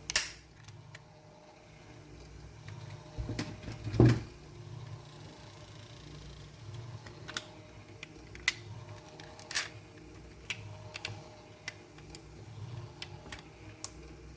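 Small metal and plastic toy cars being handled: scattered light clicks and taps, with a sharp click at the start and a heavier knock about four seconds in.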